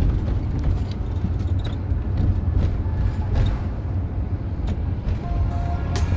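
Steady low rumble of a motorhome's engine and road noise heard from inside the cab while driving, with a scattering of light clicks and rattles.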